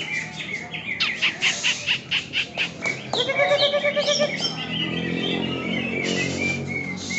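Several caged songbirds, cucak ijo (green leafbirds) among them, singing over one another in a rapid tangle of chirps, whistles and trills. About three seconds in comes a fast run of repeated notes, and a low murmur joins under the song near the end.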